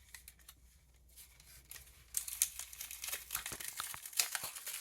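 A collectible card pack's wrapper being torn open and crinkled by hand: quiet at first, then about two seconds in a run of crackling, tearing sounds with a few sharper rips.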